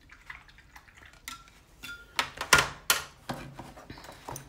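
Clinks and knocks of a metal watercolour palette tin being moved aside and set down, with a few brief metallic rings. The loudest knocks come about halfway through.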